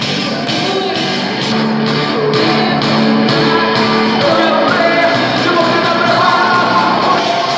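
Live rock-style worship music from a full band, with a steady beat of about two strokes a second and singing voices.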